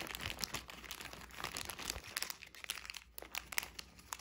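Clear plastic bag crinkling in the fingers as it is worked open, an irregular run of small crackles.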